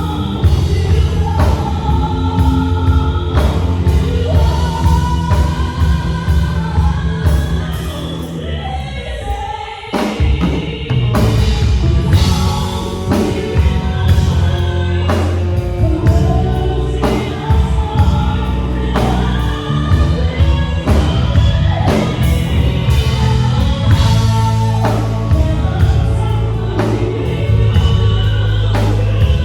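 Live band and solo singer performing a ballad: sung melody over keys, bass and drums. The music thins out briefly about nine seconds in, then comes back fuller with the drums.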